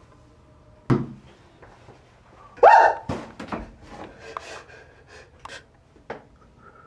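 A sharp thump, then a man's short rising cry, followed by broken sobbing in short gasps.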